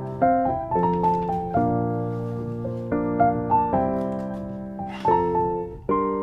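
Background music: gentle piano notes struck one after another, each ringing and fading before the next.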